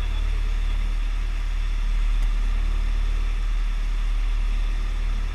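Fishing boat's engine running steadily under way, a low continuous drone.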